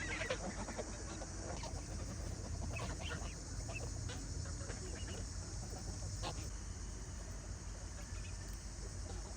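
Chickens clucking now and then, in short scattered calls over a steady high hiss.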